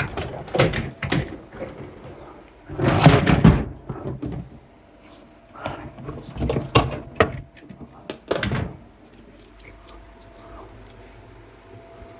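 Dishwasher door and rack being opened and handled: a series of clattering knocks and rattles, the busiest about three seconds in, growing quieter in the last few seconds.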